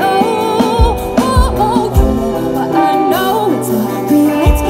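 Live pop band performance: a woman singing lead into a microphone over a drum kit and the band, heard loud through the venue's sound system from the audience, with low kick-drum hits about a second in, at about two seconds and near the end.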